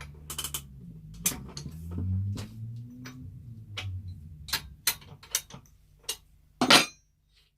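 Spanner working the left-hand-thread nut off a bench grinder's spindle to free the grinding stone: a run of irregular metal clicks and knocks, closer together in the second half, with one loud knock near the end as the nut gives.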